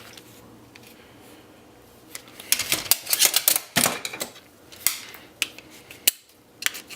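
Plastic and metal printer parts clicking and rattling as they are handled and pulled at during disassembly. A dense run of clicks comes a couple of seconds in, followed by scattered single clicks.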